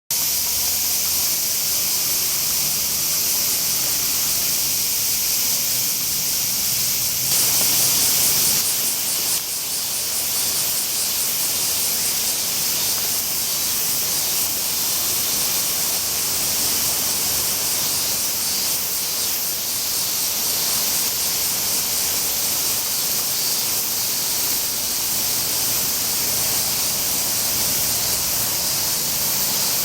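Spring water flowing and splashing in a shallow stream, a steady rushing hiss that grows a little louder for a moment about seven seconds in.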